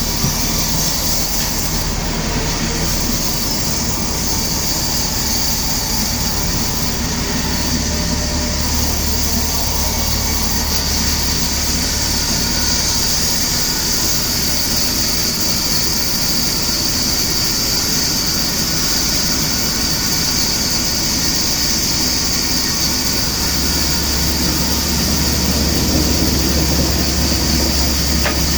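Sawmill machinery running steadily: a constant hiss over a low hum that gets louder for a few seconds near the end.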